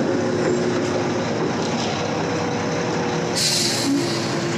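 Concrete mixer truck running steadily while stuck in soft ground, with a short hiss about three and a half seconds in.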